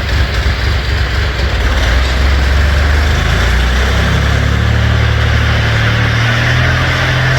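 A motor vehicle's engine running steadily, its pitch rising about halfway through and then holding higher, as if it is being revved or put under load.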